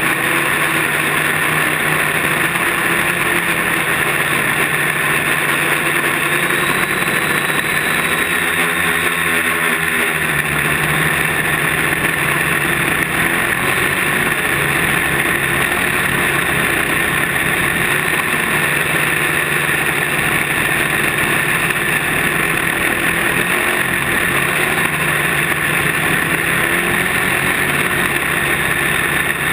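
Quadcopter's electric motors and propellers buzzing steadily, heard close up from the camera on board. Their pitch wavers briefly about eight to ten seconds in as the motors change speed.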